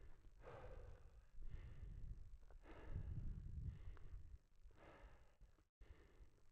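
A person breathing heavily in soft, hissy puffs, about one breath a second, as if while walking uphill, over a low rumble.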